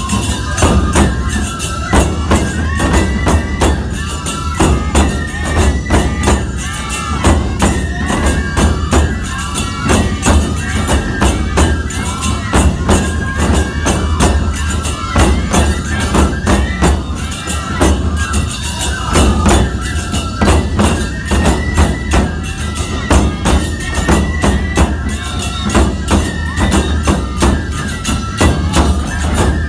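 Nebuta festival hayashi band playing live: big taiko drums beating under a bamboo-flute (fue) melody, with tebiragane hand cymbals clashing in a fast, continuous rhythm.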